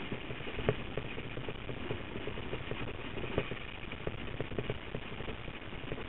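Mountain bike rolling fast over a rocky trail: a steady rumble of tyres and wind, broken by frequent sharp knocks and rattles as the wheels hit stones.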